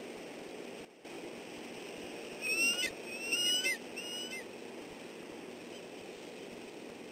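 Bald eagle calling: three short, high-pitched piping notes, each with a slight upward glide, starting about two and a half seconds in, over a steady hiss of the camera microphone.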